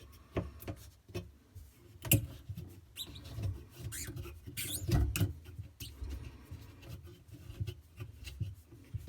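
Handling noise under a bathroom sink while the water supply shut-off valves are turned off: scattered clicks, knocks and rustling, the loudest knocks about two seconds and about five seconds in.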